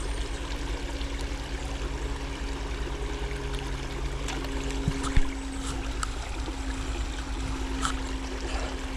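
Small creek flowing and trickling steadily, with a couple of sharp knocks a little after halfway.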